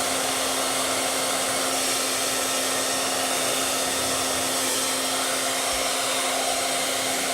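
Handheld hairdryer blowing steadily, a constant rush of air with a steady motor hum.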